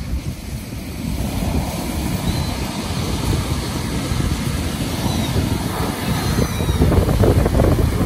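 Waves breaking and washing up a shingle beach, with wind buffeting the microphone; the surf grows louder near the end.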